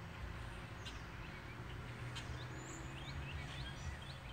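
Small birds chirping in short rising notes every second or so over a steady low outdoor rumble.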